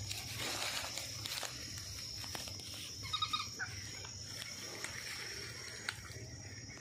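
Insects droning steadily at a high pitch, with a brief run of rapid chirping notes about three seconds in.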